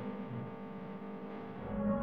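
Background music of sustained, held chords, with a deep bass coming in near the end.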